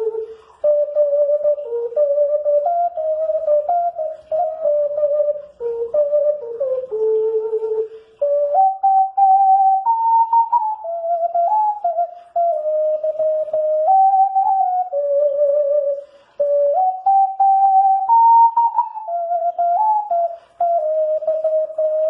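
Alto C 12-hole ocarina playing a slow melody, one pure note at a time, in phrases broken by short breath pauses.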